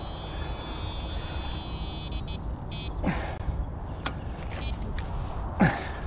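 Wind rumbling on the microphone while a fixed-spool fishing reel is wound in, with a steady high whine for about the first half that breaks off. There are short knocks of rod and reel handling about halfway through and near the end.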